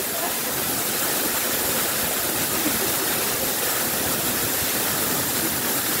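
Waterfall pouring steadily into a shallow rock pool: an even, unbroken hiss of falling water.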